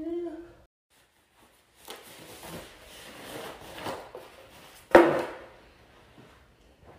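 Foam and cardboard packaging rubbing and rustling as an item is lifted out of its box, then a single sharp knock about five seconds in, the loudest sound.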